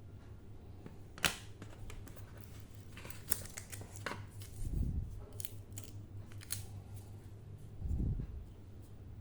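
Sharp clicks, light rustling and two soft thumps from the box and packaging of a new smartphone being handled and opened, over a steady low hum.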